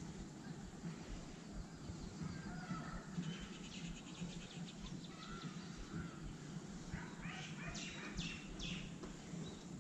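Outdoor background with a steady low hum and scattered bird chirps, with a short run of four louder calls near the end.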